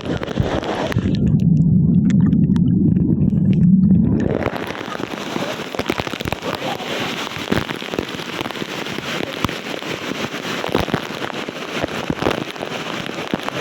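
Splashing, crackling water of a waterfall stream. From about a second in to four and a half seconds the sound turns muffled: a loud low rumble with the hiss gone, then the full splashing returns.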